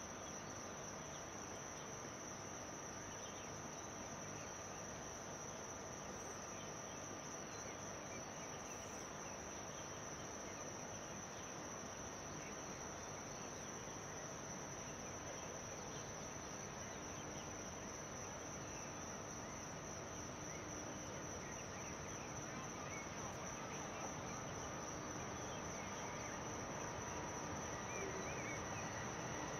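Insects chirring in a steady, continuous high-pitched trill, over a faint, even background rumble.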